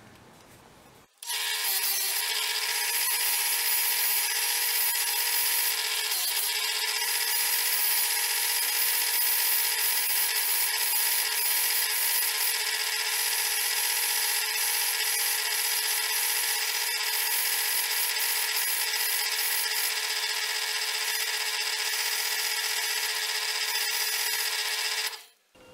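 Motor-driven stitched cotton buffing wheel spinning with a steady whine while a desert ironwood burl knife handle is pressed against it and buffed. It starts about a second in and stops abruptly near the end.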